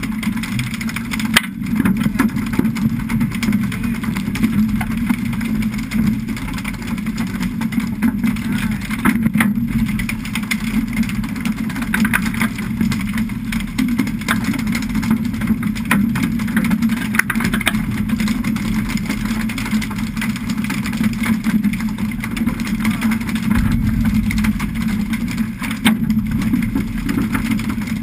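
Fishing boat's engine running with a steady low drone, with water rushing and splashing along the hull.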